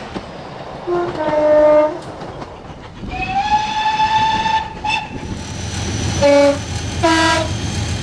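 A diesel locomotive's two-tone horn sounds once, a short high note dropping to a longer low one. Then a steam locomotive's whistle slides up and holds one shrill note for under two seconds, followed by a short extra toot. Then another two-tone horn sounds low then high over the low rumble of a moving train.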